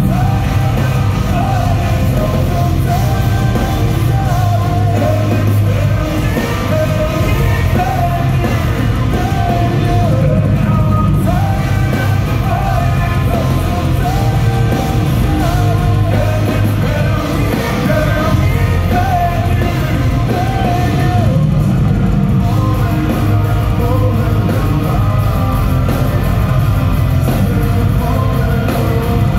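Heavy metal band playing live through an arena PA, with drums, guitars and a sung lead vocal, recorded on a phone microphone from the stands.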